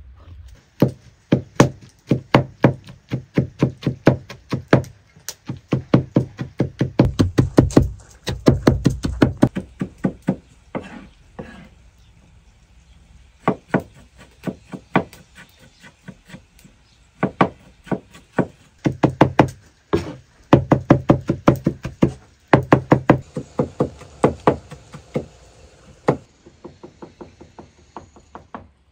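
Large kitchen knife chopping tomatoes on a wooden cutting board: fast, evenly spaced knocks of the blade hitting the board, several a second, in runs broken by short pauses, fainter near the end.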